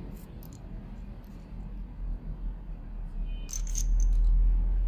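Handling noise from taking apart a small Mini Maglite torch: a few light, sharp clicks of small metal parts and a screwdriver being picked up, about three and a half seconds in. Under them is a low rumble that swells near the end.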